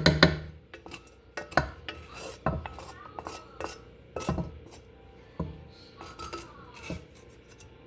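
A cooking utensil knocking and scraping against a pan while food is stirred, with a loud clunk at the start and then irregular clacks.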